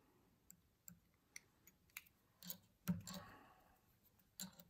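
Faint, irregular clicks of tying thread being wound around a fly hook held in a vise while a thread base is laid. One louder click comes about three seconds in, followed by a short soft rustle.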